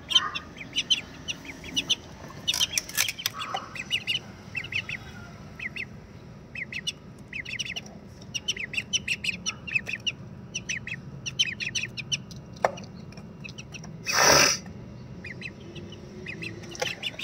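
Two ducklings peeping, short high peeps coming in quick runs of several at a time. One brief loud rush of noise about fourteen seconds in.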